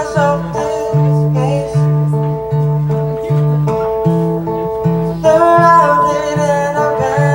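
Acoustic guitar played live in a steady, repeating picked pattern, with a singer's voice coming in near the start and again about five seconds in.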